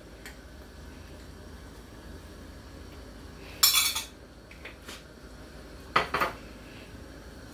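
A metal spoon and dishes clinking: a sharp clink about three and a half seconds in, another about six seconds in, and a few faint taps between, over a low steady hum.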